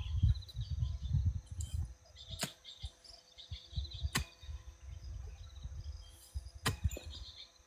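Three sharp strikes of a long-handled digging tool chopping into the soil, a second and a half to two and a half seconds apart, with insects chirping faintly.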